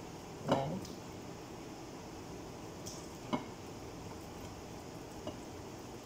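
Plastic-gloved hands working egg-coated chicken pieces in a bowl: soft wet handling with a few light taps, about three seconds in and again near the end, over a steady background hiss.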